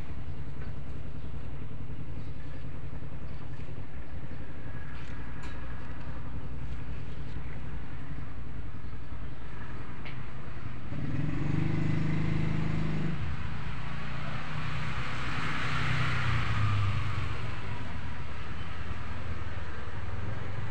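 Motor vehicle traffic: a steady low rumble, with one vehicle passing louder about halfway through, first as an engine note and then as a rushing hiss.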